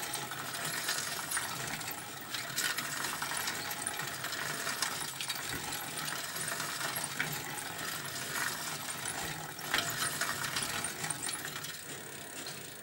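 Bicycle heard close up while being ridden: the chain and drivetrain rattle and tick continuously over the rolling of the tyres. The sound eases off near the end.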